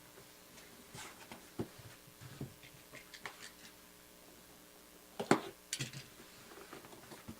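Hands handling and opening hobby-box packaging: scattered faint rustles and clicks, with one sharper, louder click a little over five seconds in.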